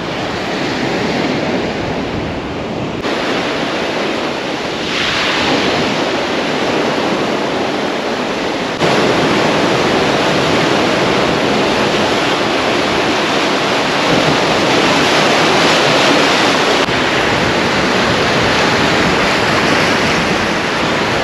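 Sea surf breaking and washing over rocks around a jetty's piles, with wind buffeting the microphone. The sound is a steady rushing wash that changes abruptly a few times, getting louder about nine seconds in.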